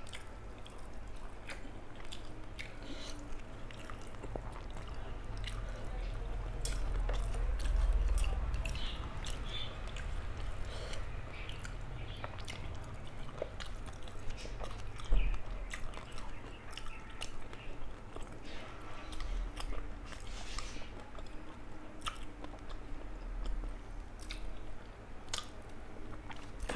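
Close-miked chewing and wet mouth sounds of someone eating rice with fish curry, with small clicks and squishes throughout. A single thump about halfway through.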